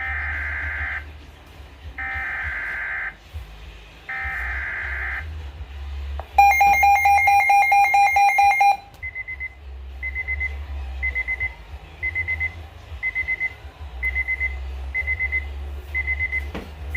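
Weather radio emergency alert sequence. It opens with three one-second bursts of warbling SAME digital header data. A loud, rapidly pulsing alert tone follows for about two seconds, then short high beeps about once a second.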